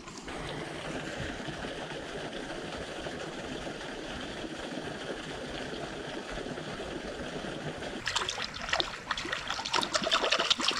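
River water trickling steadily over shoreline rocks, then, from about eight seconds in, a run of sharp splashes and knocks in the shallows.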